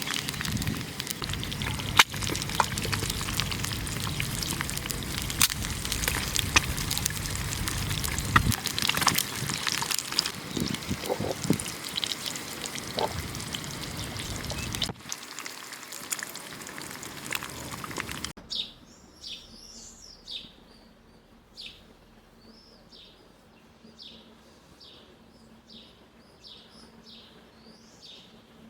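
A steady hiss with scattered clicks and pops fills roughly the first two thirds, then cuts out. In the last third a small bird chirps over and over, short high notes about once a second.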